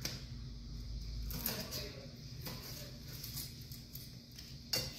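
A chef's knife slicing through fried tofu and knocking on a wooden cutting board: a few separate knocks, the loudest near the end.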